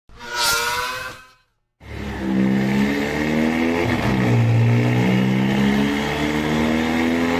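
A short whooshing sound effect, then, about two seconds in, a Volkswagen Golf GTI Mk7's 2.0-litre turbocharged four-cylinder revving hard through a Fi Exhaust system with a catless downpipe and valved cat-back muffler, its pitch stepping up and down.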